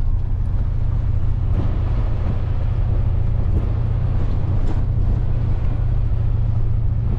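A vehicle driving at steady speed: a low, unchanging drone of engine and road noise.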